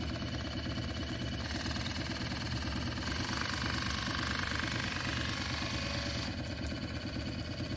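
Cordless water flosser's pump running with the jet tip held in the mouth, a steady pulsing buzz with water spraying. The sound changes about a second and a half in, again around three seconds, and about six seconds in as it is stepped through its three intensity settings.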